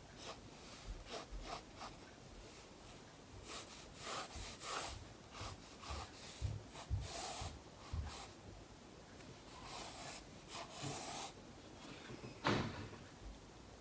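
Pencil scratching on watercolour paper in short, irregular strokes as an outline is drawn, with one sharp tap near the end.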